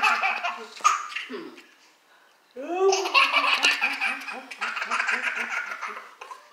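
A person laughing in quick, pulsing bursts, in two spells with a pause of about a second a couple of seconds in.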